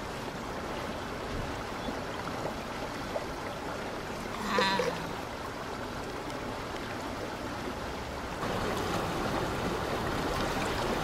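Steady rush of running water, a little louder in the last few seconds, with one brief higher-pitched sound about four and a half seconds in.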